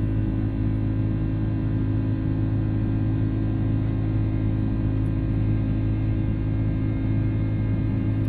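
Airbus A330's Rolls-Royce Trent 700 turbofan at climb power, heard inside the cabin beside the engine: a steady low drone with several steady whining tones over it.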